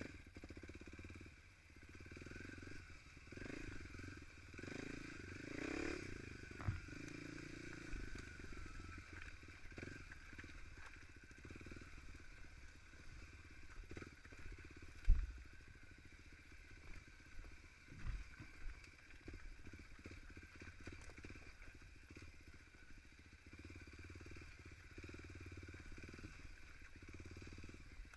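Dirt bike engine running at low revs, rising in pitch as it is revved about four to six seconds in, with knocks and clatter from the bike going over rough ground, the sharpest knock about fifteen seconds in.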